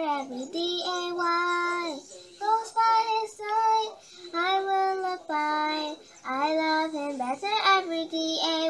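A girl singing a gospel chorus solo and unaccompanied, in held phrases with short breaks between them.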